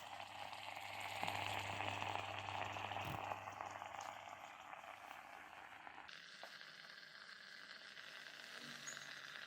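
Medtech electric steam vaporizer boiling its water: a faint, steady bubbling hiss as steam comes out. It drops quieter about six seconds in.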